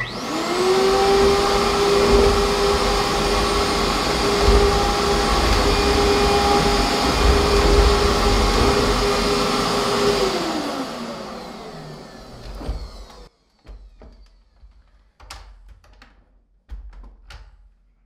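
Royal PowerCast 9000 upright vacuum's bypass motor starting with a quick rising whine and running steadily as it sweeps debris off tile with the brush roll switched off. It winds down over a couple of seconds after about ten seconds, followed by a few light knocks.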